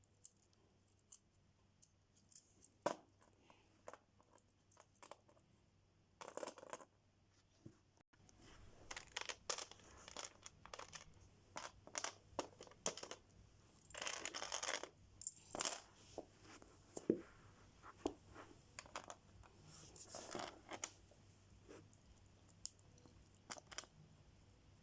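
Lego pieces and plastic packaging being handled: scattered small clicks and taps, with several short bursts of rustling or tearing, the longest about fourteen seconds in.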